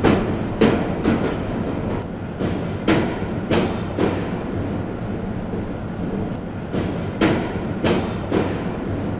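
Train running on rails: a steady rumble with wheels clacking over rail joints, the clacks coming in small groups a few seconds apart.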